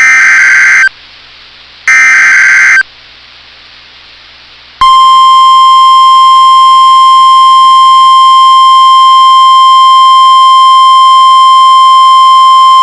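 NOAA Weather Radio Emergency Alert System signal: two roughly one-second bursts of SAME digital header data, then, about five seconds in, the steady single-pitch 1050 Hz warning alarm tone, which runs on. It announces a new warning about to be broadcast.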